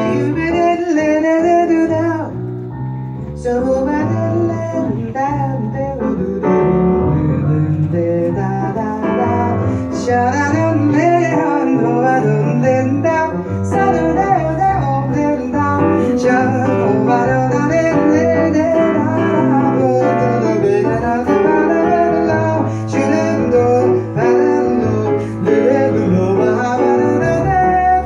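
Live jazz music: guitar and piano playing with a voice, the music running on without a break.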